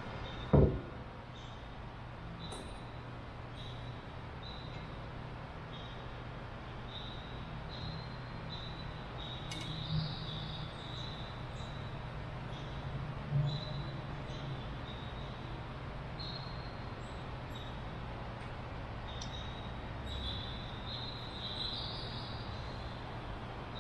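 Quiet workshop background with a steady low hum and faint, intermittent high chirps. A single sharp knock comes about half a second in, and there are two softer knocks later.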